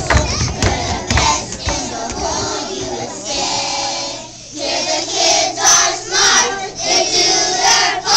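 A group of young children singing a song together, with a brief break about four seconds in.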